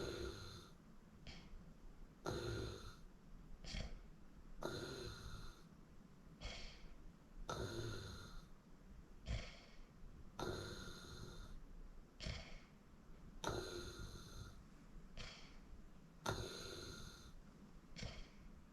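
A person snoring in their sleep: a louder snore roughly every three seconds, seven in all, each followed by a shorter, fainter breath sound, in a steady rhythm.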